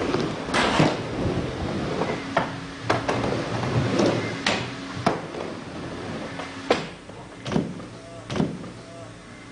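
Skateboard wheels rolling over an indoor skatepark ramp, with repeated sharp clacks of the board and trucks hitting the surface. Near the end come two hard impacts as the skater falls and slams onto the ramp, his board coming loose.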